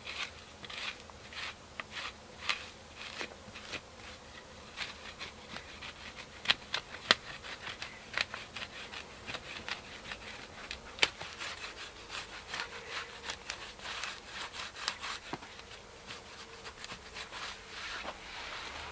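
A wooden stick scraping and gouging into dirt, digging a shallow trench in irregular, repeated strokes. A few sharper knocks stand out, the loudest about seven and eleven seconds in.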